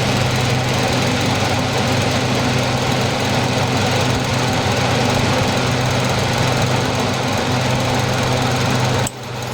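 Old dehumidifier powered up, its compressor giving a loud, steady electrical hum. About nine seconds in the hum drops sharply as the thermal overload switch cuts off the electricity, leaving a fainter hum running on.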